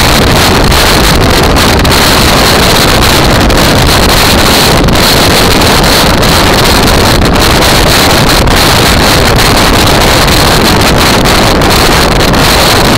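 Steady, loud wind rush over a motorcycle-mounted microphone at riding speed, mixed with the motorcycle's engine running underneath.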